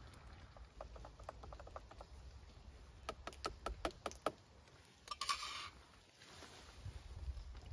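Faint handling of camp cooking gear: a run of light ticks, then a quicker string of sharper clicks, then a short hiss.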